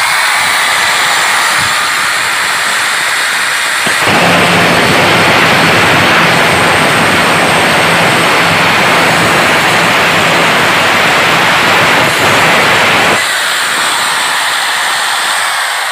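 AEG angle grinder with an abrasive cut-off disc running free with a steady whine for about four seconds, then cutting through a steel bar for about nine seconds, a louder, harsher grinding noise. It then runs free again and winds down near the end.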